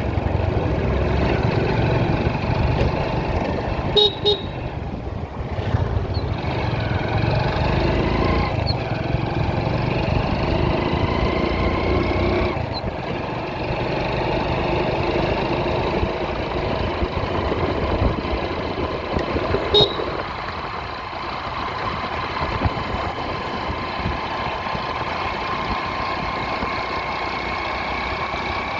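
Motorcycle engine running under way with a low rumble of wind and road, its pitch climbing and dropping several times as the bike speeds up and shifts. A horn beeps briefly twice, about four seconds in and again near twenty seconds.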